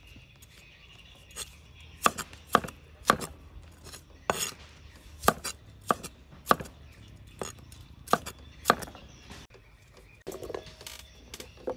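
Cleaver chopping green vegetable pieces (looks like cucumber) on a thick round wooden chopping block. About a dozen sharp knocks of the blade on the wood, spaced unevenly with short pauses.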